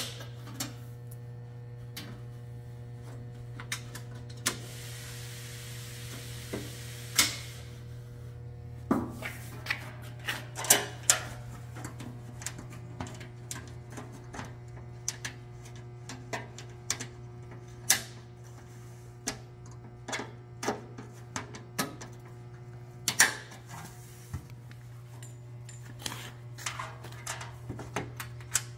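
Irregular sharp clicks and knocks as Dzus quarter-turn fasteners are pushed into their springs and turned to lock a door skin onto a UTV door frame, over a steady low hum.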